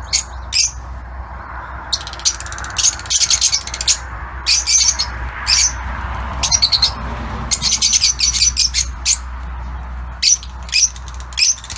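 Fischer's lovebirds chirping: clusters of short, shrill, high calls in rapid strings, over a steady low hum.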